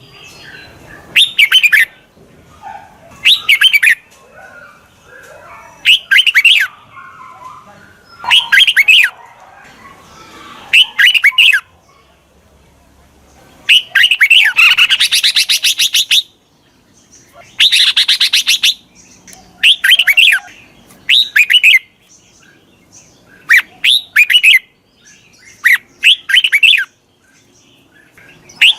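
Red-whiskered bulbul calling: short, loud whistled phrases repeated about every two seconds, with two longer rapid chattering runs in the middle.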